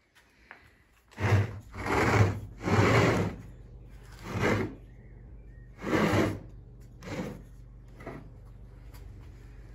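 Rough scraping strokes of stone and wood, about seven of them, each under a second and loudest in the first three: the upper stone of a hand quern is being shifted on a wooden worktable and its wooden handle worked into place. A low steady hum runs underneath.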